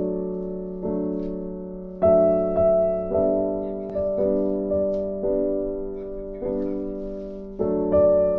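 Background piano music: slow chords struck about every half second to a second, each left to ring and fade.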